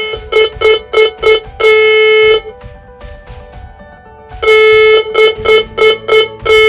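Morse code practice tone, a buzzy single-pitched note, sending the hyphen signal (dash, four dots, dash). The signal is heard twice, with a pause of about two seconds between.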